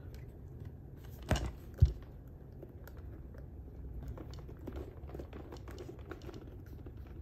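Handling noise from a large Mattel D-Rex animatronic toy dinosaur being turned over in the hands. There are two knocks about a second and a half in, then soft rustling and light clicking of its rubbery skin and plastic body under the fingers.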